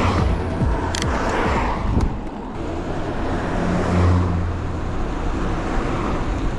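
Road traffic: cars passing by, their noise swelling and fading several times over a steady low hum.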